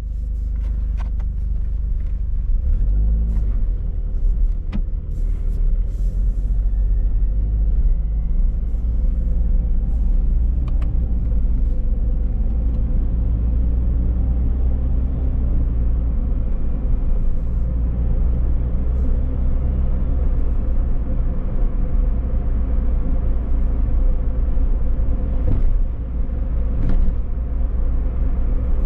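Toyota car driving, with a steady low rumble of engine and road noise.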